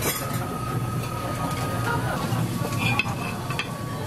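Restaurant background noise: a steady low hum with a faint high whine, and a few light clinks of tableware about three seconds in.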